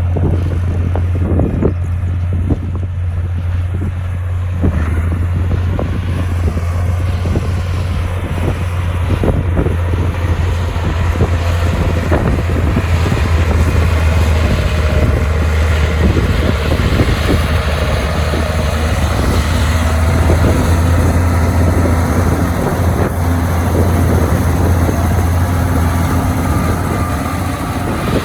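Heavy earthmoving machine's diesel engine running steadily with a deep low hum, with scattered short clanks and knocks.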